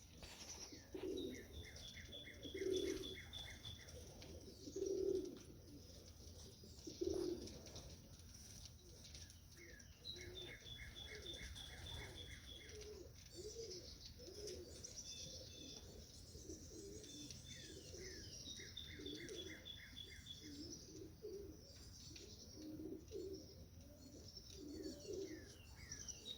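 Racing pigeons cooing softly and repeatedly in the loft. A small songbird sings a repeated chirping phrase several times over them.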